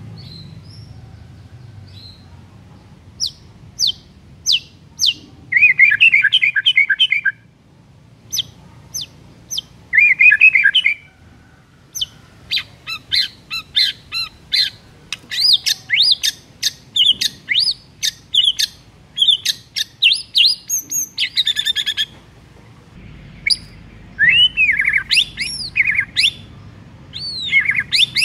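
White-rumped shama (murai batu) singing: a long, varied run of whistled notes, swooping phrases and fast rattling trills, broken by short pauses. The loudest parts are two dense trills about six and ten seconds in.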